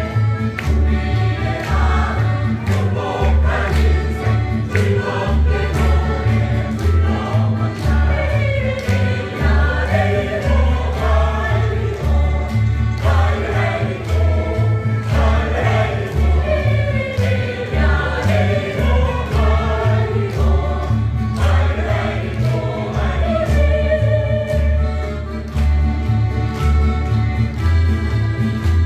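A group of voices singing together over a musical accompaniment with a steady pulsing bass beat.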